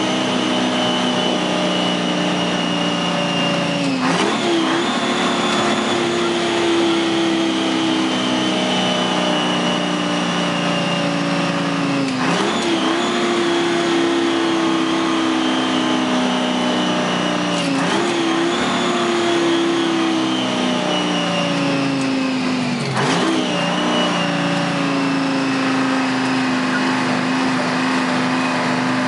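Two-stroke 6V53 Detroit Diesel V6 in a 1972 Dodge truck heard from inside the cab. Its revs fall steadily as the truck slows, with four gear changes through the 10-speed Road Ranger gearbox, each a brief break followed by a jump up in engine pitch, typical of downshifting.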